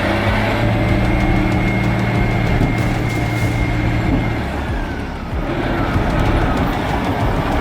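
Caterpillar 773E off-highway haul truck's diesel engine running with a steady note. The note drops away about five seconds in, then picks up again.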